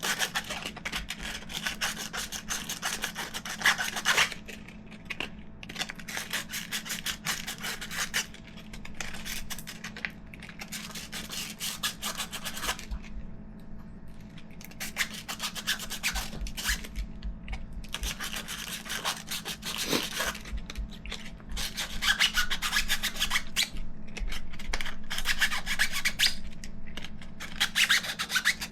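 120-grit sandpaper rubbed quickly back and forth by hand on the inside of a 3D-printed TPU tire, scuffing the surface so glue can key in. The strokes come in spells, with short pauses between them.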